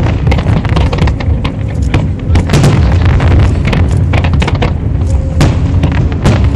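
Aerial firework shells bursting in quick succession: a dense run of loud bangs over a continuous low rumble.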